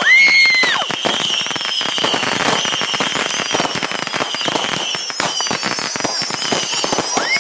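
Fireworks going off in a dense run of crackling pops, with long high whistles, some slowly falling, over the top. A high-pitched scream is held briefly at the start, and another begins near the end.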